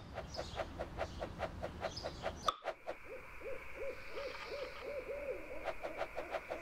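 Cartoon night ambience sound effects: a light rhythmic patter about five times a second runs through. After a sudden change about two and a half seconds in, a quick run of owl hoots sounds over a steady high chirring.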